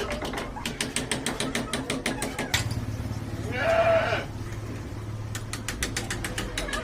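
Rapid clicking or tapping, about eight a second, with a single bleat-like animal call, rising and falling, about three and a half seconds in. The clicking comes back near the end over a low steady hum.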